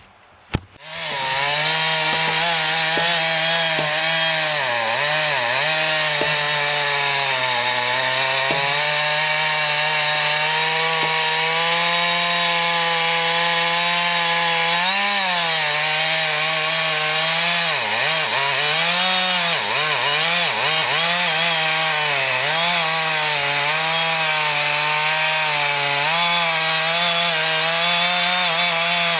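Husqvarna chainsaw starting up about a second in, then running at high revs and cutting into a dead ash tree, its engine note dipping again and again as the chain bites into the wood.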